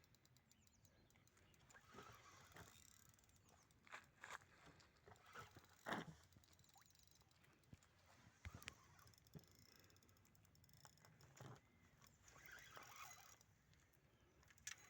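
Near silence: faint outdoor quiet with scattered soft knocks and rustles.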